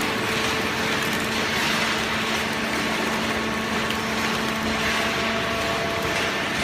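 Hydraulic cardboard baler running, its electric motor and hydraulic pump giving a steady hum over an even noise. A low tone in the hum fades out about five seconds in, as a higher one comes in.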